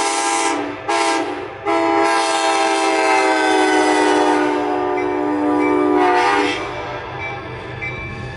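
Locomotive air horn sounding a chord of several notes: a blast ending about a second in, a short blast, then a long blast whose pitch falls steadily, as a passing horn's does, before it cuts off. The train's running noise carries on after the horn stops.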